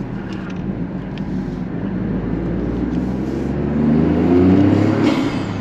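Toyota GR Corolla's turbocharged three-cylinder engine accelerating through a K&N aftermarket intake, with loud intake noise. The engine note climbs in pitch and grows louder, then drops off about five seconds in.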